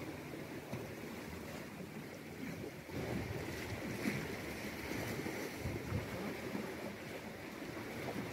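Sea water washing against the rocks below, with wind buffeting the microphone in low gusts, strongest in the middle.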